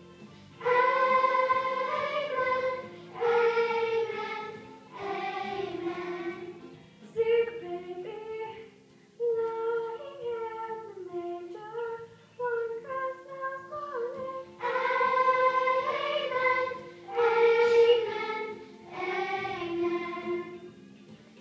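Children's choir singing unaccompanied, in sustained phrases with short breaths between them. The sound turns softer and thinner from about seven seconds in, and the full choir comes back in about fourteen seconds in.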